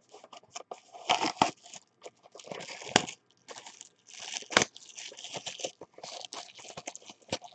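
Cellophane shrink wrap on a trading-card box being torn off by hand, crinkling and crackling in irregular bursts, with a couple of sharp snaps about three and four and a half seconds in.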